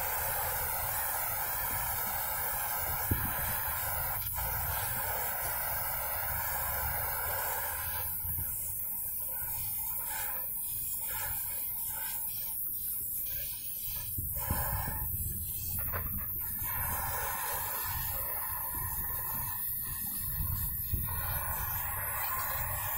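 Gas welding torch flame hissing steadily with a low rumble, heating a brazed copper pipe joint on an air-conditioning compressor until it softens so the pipe can be pulled free. A sharp click about 3 s in.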